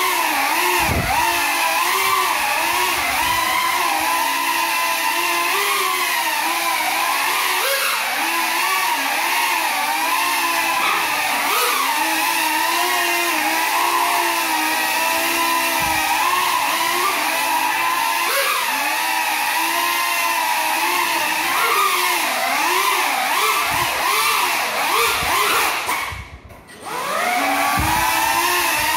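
Small FPV quadcopter's electric motors whining as it flies on broken propellers, the pitch rising and falling constantly with the throttle. Near the end the whine cuts almost out for about a second, then picks up again.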